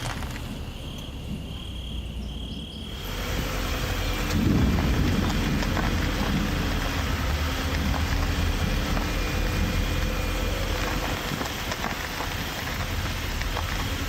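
Layered sound effects: steady rain sets in about three seconds in. From about four seconds in, a deep rumble and the steady hum of a truck's engine pulling up join it, and the hum fades a few seconds before the end.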